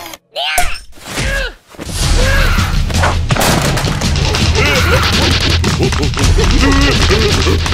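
Cartoon soundtrack: the larva characters' high, wordless babbling and squealing over background music, with slapstick thuds and crashes.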